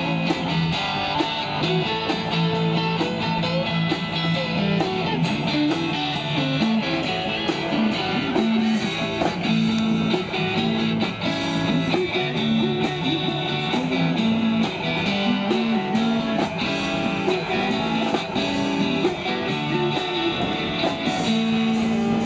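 A live band plays an instrumental number: electric guitars through small amplifiers, over a drum kit.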